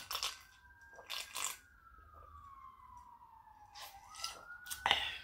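Faint emergency-vehicle siren wailing outside, its pitch rising quickly and then falling slowly, twice, about four seconds apart. Over it, a few short, louder crunches and clicks of food being bitten and chewed close to the microphone.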